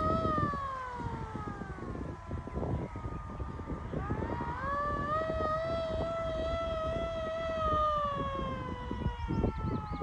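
Hand-cranked air raid siren wailing. Its tone slides down over the first two seconds, swells back up about four and a half seconds in and holds, then falls slowly again near the end.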